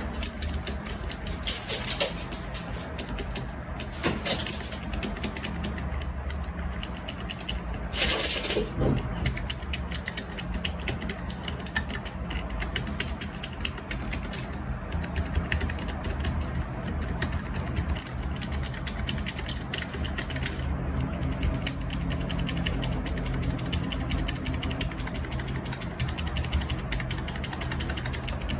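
Keychron K3 Ultra-slim low-profile optical keyboard being typed on, a fast, continuous run of key clicks.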